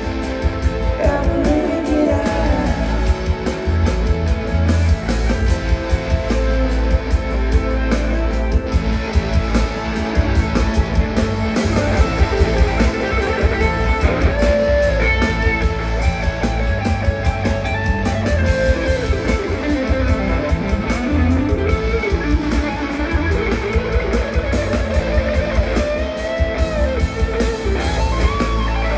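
Live band playing an instrumental passage, guitar to the fore, over bass and drums with a steady beat.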